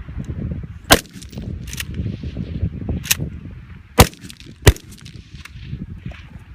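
Rifle shots from a Heckler & Koch MR556A1 5.56 mm semi-automatic rifle: loud, sharp reports about a second in, at about four seconds and again just after, with fainter shots between them.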